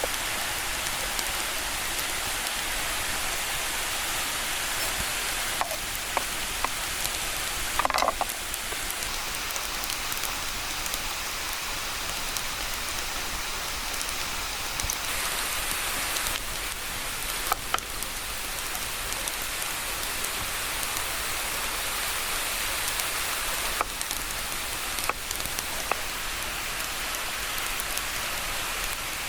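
Waterfall rushing in a steady, even roar of falling water, with a few brief sharp clicks over it and a short louder knock about eight seconds in.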